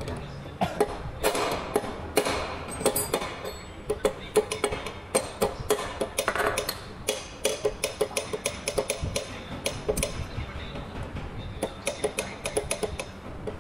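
Metal tools clinking and clicking against a tractor dual-clutch pressure plate assembly as it is worked on by hand, a rapid, uneven run of sharp clinks.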